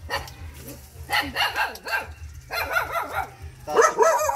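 Dogs barking and yipping in several short rounds, loudest near the end, over a steady low hum.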